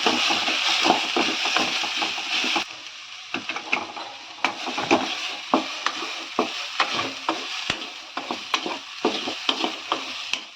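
Ground soya-chunk masala frying in a little hot oil in a pan while a spatula stirs and scrapes it. The sizzle is loud for the first two and a half seconds, then drops away suddenly, leaving mostly the spatula's scrapes and knocks against the pan.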